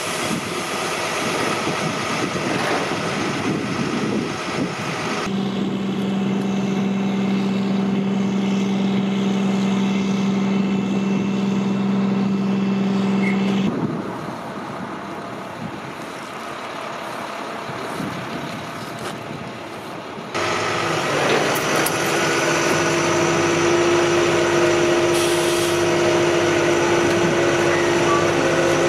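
Flatbed tow truck's diesel engine running steadily while it winches a crashed minivan up onto its tilted bed. The hum changes pitch and level abruptly a few times and is quieter for several seconds in the middle.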